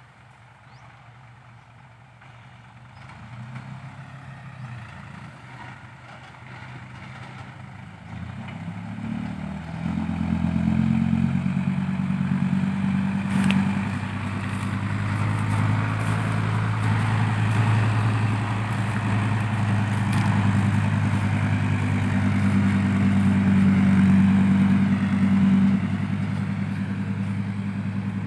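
Heavy diesel engine running, quiet at first and then much louder from about ten seconds in, staying loud, with a few sharp clanks along the way.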